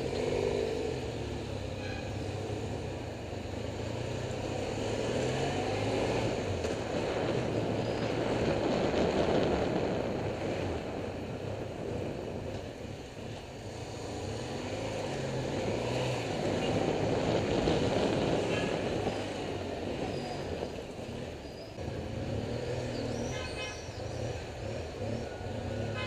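Honda Africa Twin XRV750's V-twin engine running through slow city traffic, heard from the bike, with wind rush swelling and easing as it speeds up and slows. A short horn toot sounds near the end.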